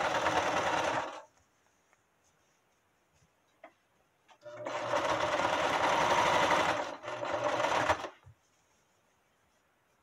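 Electric sewing machine stitching a straight seam through thick terry towelling. It runs in two bursts: the first stops about a second in, and after a pause of about three seconds it runs again for about three and a half seconds, with a short break just before it stops.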